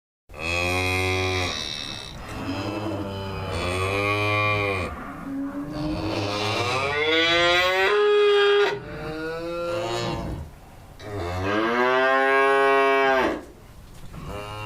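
Cattle mooing: several long, loud moos one after another, one of them rising in pitch midway through.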